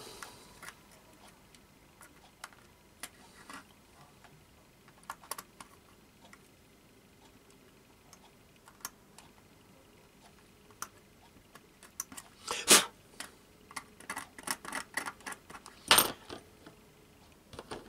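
Scattered light clicks and scrapes of a scalpel trimming plastic from the buffer beam of a plastic OO gauge hopper wagon, with two sharper knocks in the last third.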